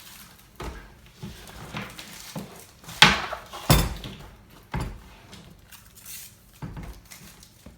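Handling noises of unpacking: a string of knocks and rustles of cardboard and plastic packaging, with two louder thumps close together about three seconds in.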